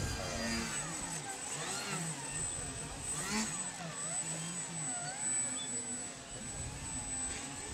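Motor and propeller of a radio-controlled Yak 55 foam aerobatic model in flight, its whine gliding up and down in pitch as the throttle is worked.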